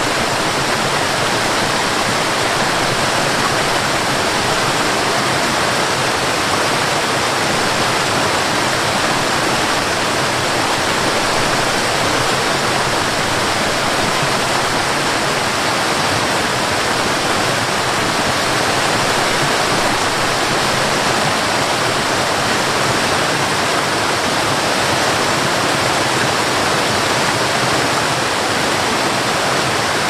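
Waterfall cascading down over rocks: a steady, unbroken rush of falling water.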